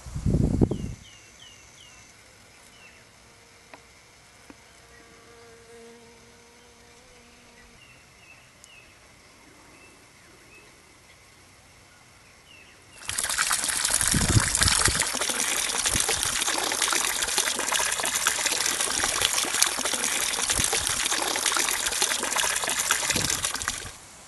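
A short low thump, then quiet outdoor ambience with a few faint high chirps. About halfway through, a loud, dense rush of running or splashing water starts suddenly, holds steady for about eleven seconds, and cuts off abruptly.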